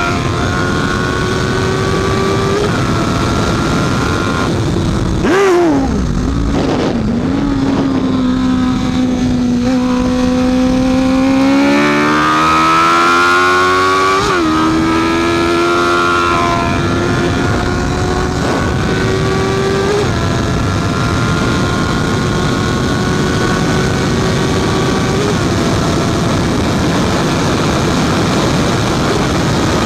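Honda CB650F inline-four engine running hard on a racetrack, its pitch held high and stepping at gear changes. Around five to seven seconds in the revs fall sharply, then climb steadily again from about eleven seconds.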